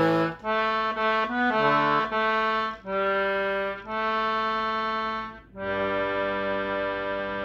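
Concertina playing a slow tune in chords, each note held a moment with short breaks between them. About two-thirds of the way through it settles into one long held chord.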